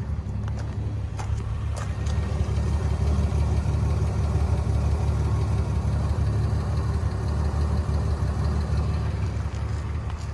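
Slant-six engine of a 1971 Dodge Dart Swinger idling steadily, a deep even hum heard low near the car's underside and exhaust.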